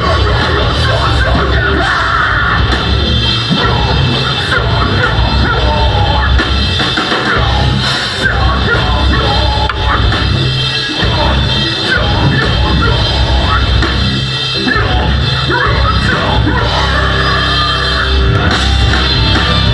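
Live metalcore band playing loud, with distorted guitars, bass and a pounding drum kit under harsh screamed vocals.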